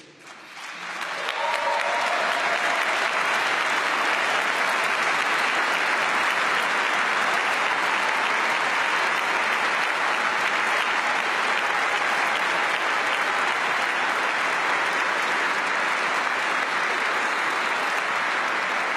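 Large audience applauding: the clapping swells over the first second or two, then holds steady as a dense, even patter.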